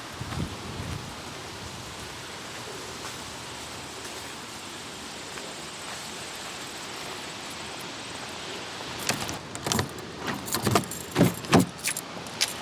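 Steady outdoor hiss of wind and distant traffic. About three-quarters of the way through it gives way to a quick run of sharp clicks and knocks, like keys and handling at close range.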